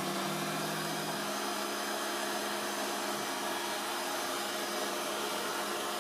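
CNC router spindle running steadily with a 1/4-inch compression bit, carving a foam anti-fatigue mat: an even machine noise with a steady hum, one lower hum tone dropping away about a second in.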